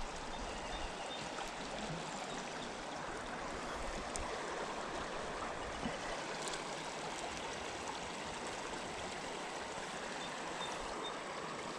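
River water running steadily, an even rushing and trickling.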